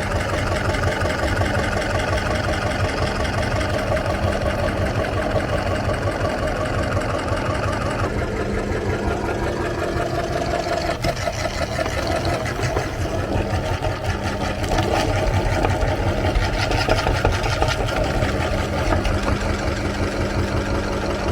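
Electric meat grinder running steadily with a constant motor hum while it grinds bananas. It gets a little louder about two-thirds of the way through.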